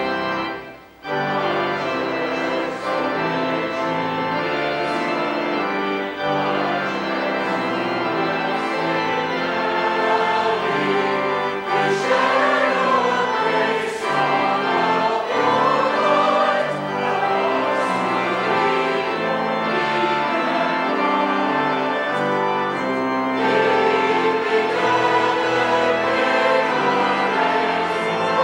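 Church choir singing a hymn with organ accompaniment. The music breaks off briefly about a second in, then carries on.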